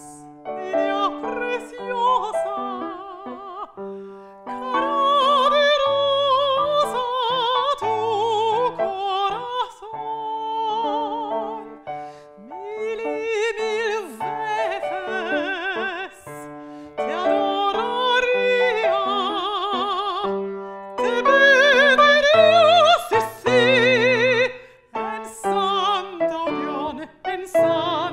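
A mezzo-soprano singing an art song with wide vibrato, accompanied by a Petrof grand piano, in phrases broken by short breaths.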